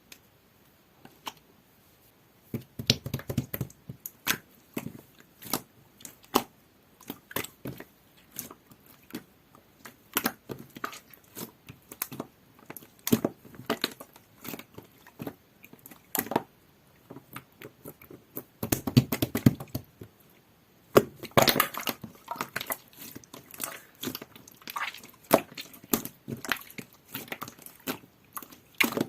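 Clear glitter slime with a jelly-like texture being squeezed, pressed and folded by hand, giving irregular wet clicks and pops. The squishing thickens into fuller, denser stretches about three seconds in and again a little past the middle and shortly after.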